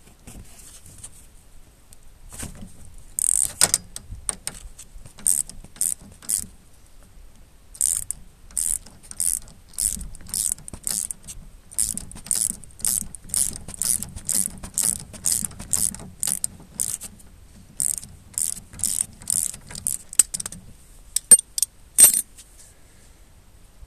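Ratchet clicking in short repeated strokes, about two a second, as the nut on a mobility scooter's steering track rod end is undone. Two sharper metallic clinks near the end.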